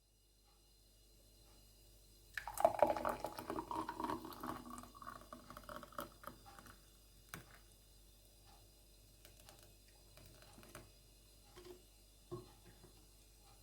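Freshly blended fruit smoothie sloshing and pouring for about two and a half seconds, starting a couple of seconds in, followed by scattered light clicks and knocks.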